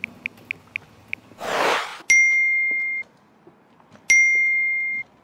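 Smartphone keyboard clicks as a message is typed, then a whoosh, then two message-notification chimes about two seconds apart, each a bright ding that rings for about a second.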